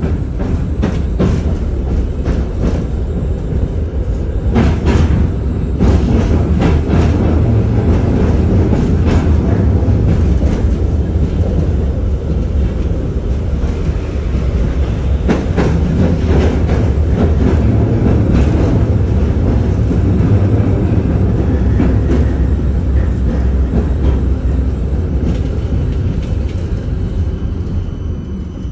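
An LM-99AVN tram heard from inside the car while running along the track: a loud steady low rumble with irregular clattering knocks, dying down near the end.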